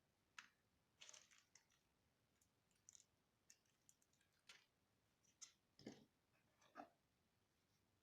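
Faint, irregular clicks and taps, a dozen or so, with the two fullest and loudest about six and seven seconds in.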